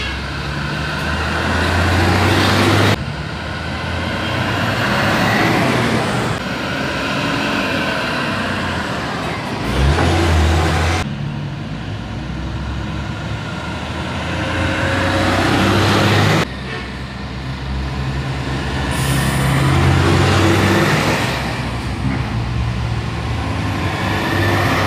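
IVECO Euromidi LE coach buses driving past one after another, their diesel engines running with tyre and road noise as each one nears and passes. The sound changes abruptly several times where one bus's pass gives way to the next.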